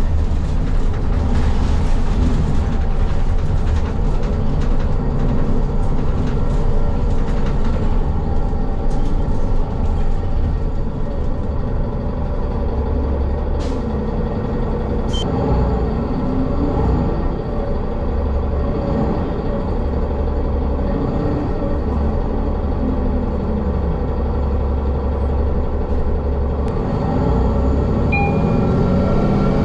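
City bus engine and road noise heard from inside the cabin: a steady low rumble, with the engine note rising and falling several times from about halfway through.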